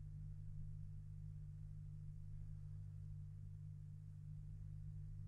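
Faint steady low hum with light hiss: the background noise of an old recording, with no voice.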